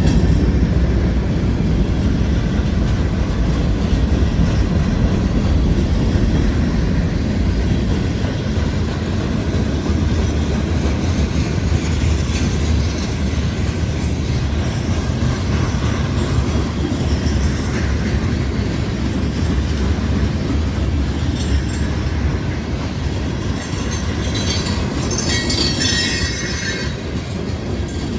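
Freight train cars rolling past with a steady rumble of wheels on rail and clicking over rail joints. High-pitched wheel squeal rises near the end.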